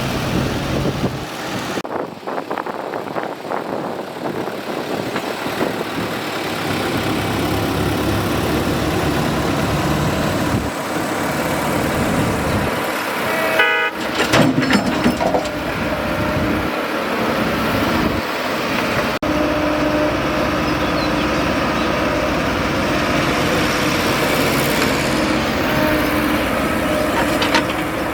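Excavator's diesel engine running steadily with a continuous tonal whine over the engine noise, and a brief higher-pitched sound about halfway through.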